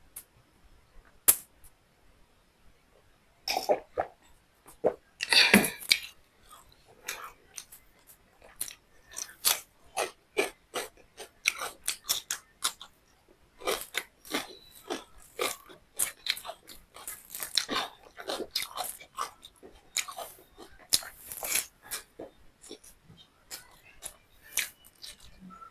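Close-up chewing and mouth sounds of someone eating beef liver with rice: a run of short clicks and smacks, a few at first and then about two a second from a few seconds in.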